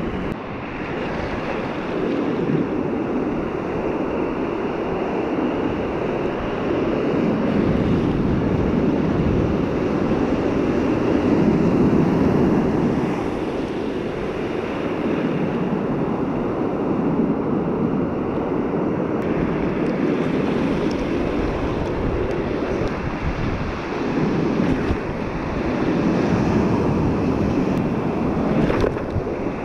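Ocean surf washing in close by, its rush swelling and easing, with wind on the microphone.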